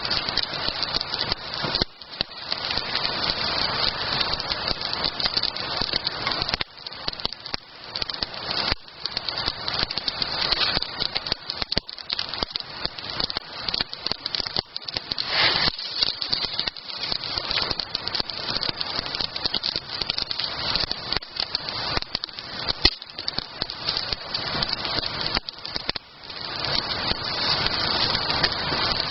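Wood campfire burning, crackling steadily with many small snaps and pops over a hiss.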